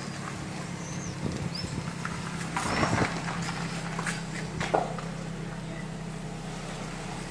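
Toyota Camry idling with a steady low hum, with a few footsteps on gravel about a third and two-thirds of the way in.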